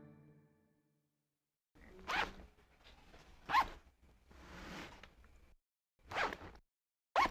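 A bag's zipper pulled in five short, separate strokes, the middle one longer and softer, with quiet gaps between them.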